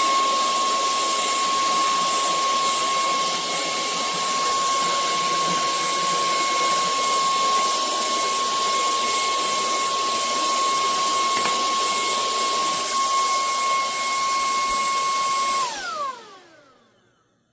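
Cordless handheld vacuum cleaner's brushless motor running with a steady high whine and the rush of air through the suction. About 16 seconds in it is switched off, and the whine falls in pitch as the motor spins down to silence.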